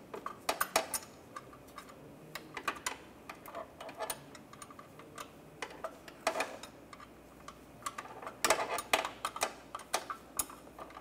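Light metallic clicks and taps of a 10 mm wrench on a bolt as the belt tensioner's bolts are worked loose. The clicks come irregularly in small clusters, busiest about two thirds of the way through.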